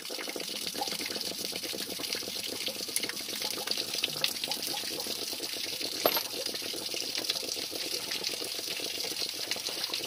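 Water gushing steadily out of an RV water heater tank through its open drain-plug port as the tank drains.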